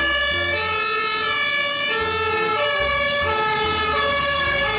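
Toy fire truck's electronic sound unit playing a siren sound: steady synthetic tones that step between pitches over a low bass.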